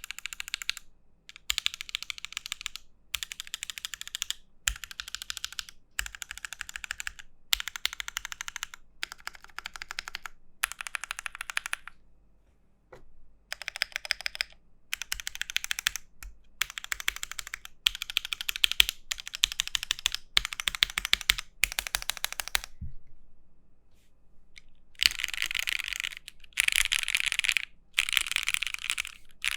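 Typing on an Aquila mechanical keyboard: an Alice-layout, top-mount aluminium case with a polycarbonate plate and JWK Dogikon switches. Fast bursts of keystrokes, each lasting about half a second to a second, are separated by short gaps, with longer pauses about halfway and about three-quarters of the way through.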